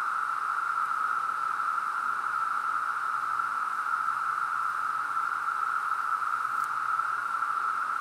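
Steady, unbroken droning chorus of many 17-year periodical cicadas, a dense mid-pitched hiss that does not rise or fall.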